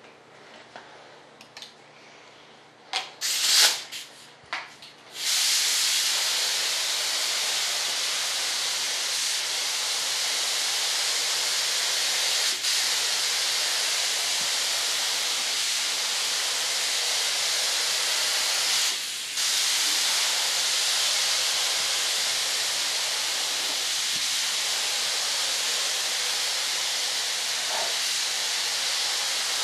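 Compressed-air spray gun with a top-mounted paint cup spraying primer: a few short bursts of hissing air about three to five seconds in, then a long steady hiss with one brief break about two-thirds of the way through.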